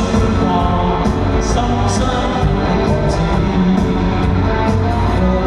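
Pop-rock song playing with a steady drum beat and guitar, in a passage with no clear lyrics.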